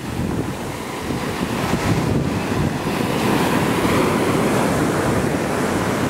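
Ocean surf washing up the beach, foaming waves running in over the sand, with wind buffeting the microphone.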